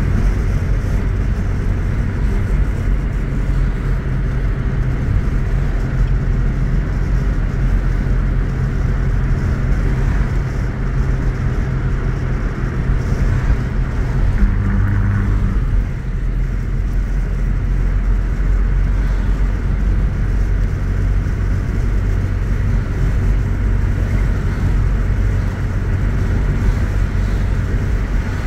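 Steady road and engine noise heard from inside a moving car's cabin, a low rumble with an even engine hum whose note changes briefly about halfway through.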